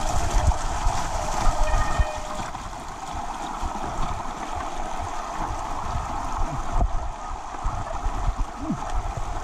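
Mountain bike riding downhill over wet mud and loose gravel: a steady wash of tyre noise with irregular low thumps from the rough track and wind buffeting the camera microphone. A faint thin whine sits under it for the first couple of seconds.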